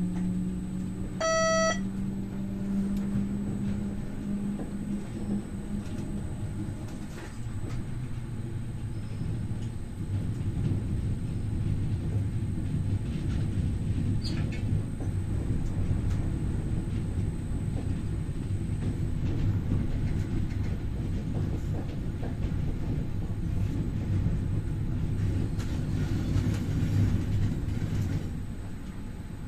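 MI84 electric multiple unit heard from the driver's cab while running: a steady low rumble and hum of the train in motion. A short electronic beep sounds about a second and a half in, and a low drone fades out over the first several seconds.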